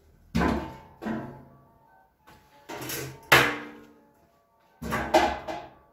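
White metal folding chairs being folded and set down against each other: about five clanks and rattles that ring briefly, the loudest just past the middle.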